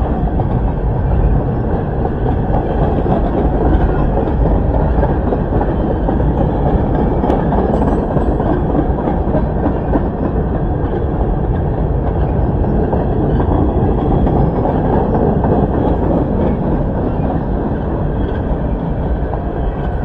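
Norfolk Southern freight train's tank cars and boxcars rolling past across a steel truss bridge: a steady, loud rumble of steel wheels on rail.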